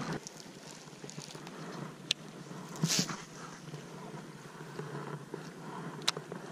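A baitcasting rod and reel being cast: a short whoosh of the cast about three seconds in, and a sharp click from the reel before it and another near the end, over faint river water and wind.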